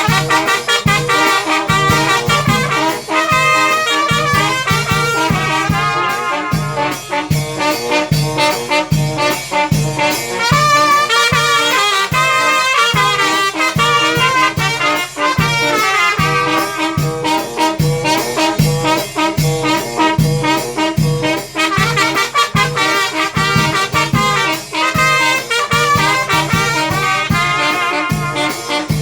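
A Mexican banda playing: trumpets and trombones carry the melody over a steady low bass beat of about two a second.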